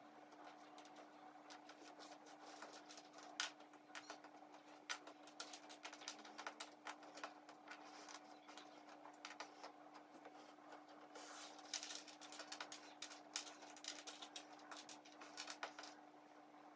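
Jigsaw puzzle pieces clicking and clattering lightly against each other and the tabletop as a hand sorts and spreads them, in many quick small taps with busier spells near the end. A faint steady hum runs underneath.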